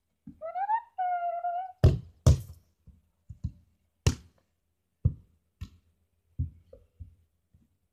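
A child's short rising call, then about six sharp, close thuds of a football being bounced and knocked about at uneven intervals.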